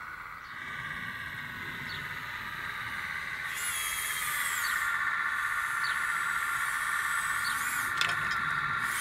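Electric tipping drive of a radio-controlled Ausa dumper whining steadily as the skip rises, getting louder about three and a half seconds in. A single sharp click near the end, as the load of slate starts to slide off.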